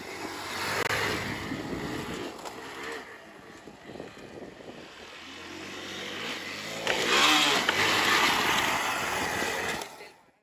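Hero Xpulse 200's single-cylinder engine being ridden, its note rising and falling with the throttle and loudest from about seven seconds in. It cuts off suddenly just before the end.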